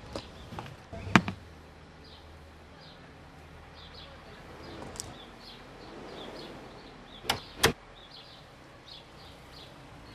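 Wooden front door being shut and latched: a loud sharp knock about a second in and two clicks close together near the end. Birds chirp faintly throughout.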